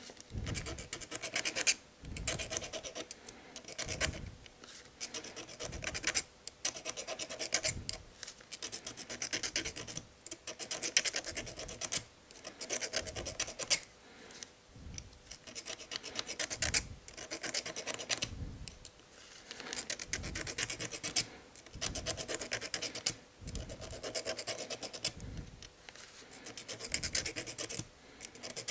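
Needle file rasping over the metal of a timing-belt gear to take off burrs, in runs of quick back-and-forth strokes lasting a second or two, each run followed by a brief pause.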